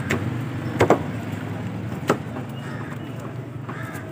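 Heavy knife chopping fish on a wooden log chopping block: a few sharp knocks, two close together about a second in and another about two seconds in, over a steady background of street and market noise.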